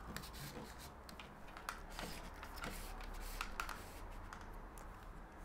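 Diffuser cover being slid along a slimline LED mounting profile by hand: faint scraping with scattered small clicks and ticks.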